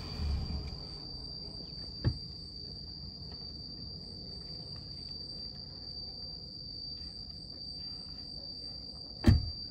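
Insects chirring in one steady high trill, with fainter pulsed chirps above it. A sharp click about two seconds in and a loud thump near the end fit the SUV's side door being opened and then pushed shut.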